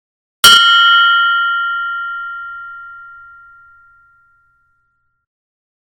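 A meditation bell struck once about half a second in, ringing with several clear tones that fade away over about four seconds.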